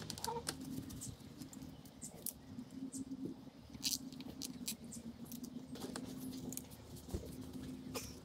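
Plastic zip ties being threaded and pulled tight around a milk crate, a string of small irregular clicks and rattles over a faint steady low hum.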